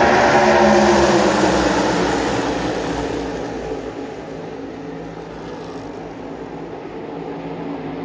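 A pack of NASCAR Cup Series stock cars' V8 engines racing past, several engine notes falling in pitch as they go by. The sound is loudest near the start and fades over the next few seconds to a steady, distant drone as the field runs away around the track.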